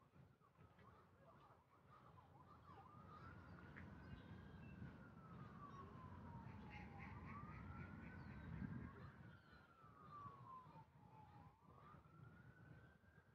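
Faint emergency-vehicle siren in a slow wail, its pitch rising and falling about every four to five seconds, over a low rumble.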